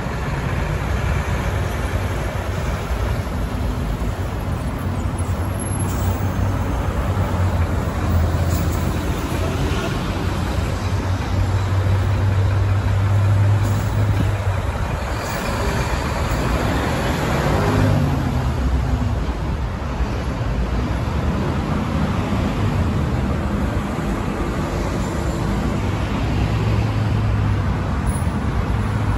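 Buses and road traffic going by: a continuous low engine rumble that swells and fades several times as vehicles pass, with one clear pass about two-thirds of the way through.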